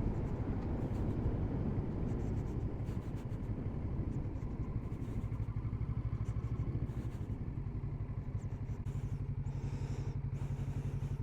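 Kawasaki Z650RS parallel-twin engine running steadily, a low, evenly pulsing engine note.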